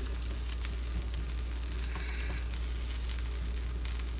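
Canned corn sizzling in a hot pan, with small crackling pops scattered through, over a steady low hum.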